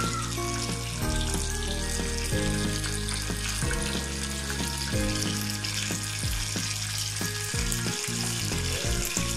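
Oil sizzling steadily around two marinated pomfret shallow-frying on medium heat, the first side crisping. Background music plays underneath.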